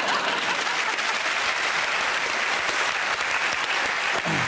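Studio audience applauding steadily after a line of freestyle rap, with a voice briefly calling out near the end.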